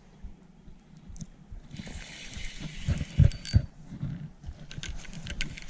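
Light splashing and rustling as a hooked largemouth bass is played in to the bank on a spinning rod, with a few knocks and clicks from the rod and reel about three seconds in.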